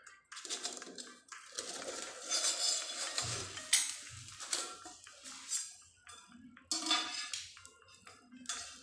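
Stainless steel lid scraping and clinking against a steel kadai as it is pried up off the banana leaves it has stuck to, with irregular sharp metal clicks, the loudest a little under four seconds in.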